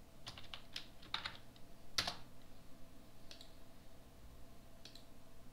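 Computer keyboard keystrokes: a quick run of about eight key clicks in the first second and a half, then one louder click about two seconds in and two lighter clicks later, over a faint steady hum.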